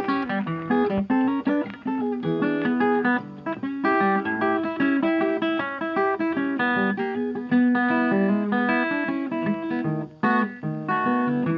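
Background music: fingerpicked guitar playing a quick, busy run of notes.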